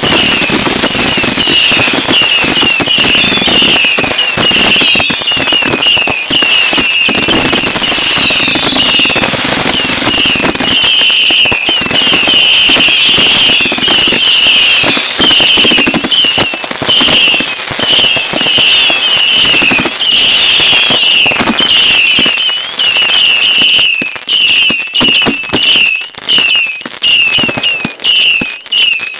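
Consumer fireworks finale at close range: a dense, nonstop barrage of bangs and crackling, with many short high whistles and screeches gliding in pitch over it. The barrage thins out into separate reports near the end.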